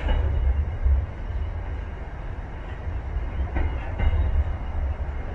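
Freight train of container flat wagons rolling past: a steady low rumble with a few sharp clacks of wheels over rail joints, two of them close together about two-thirds of the way through.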